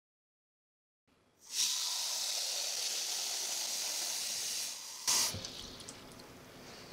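Kitchen tap water running into a small pot, filling it. The water starts about a second and a half in and runs steadily. It stops near the end with a short loud burst, and the water in the pot sloshes as the pot is moved.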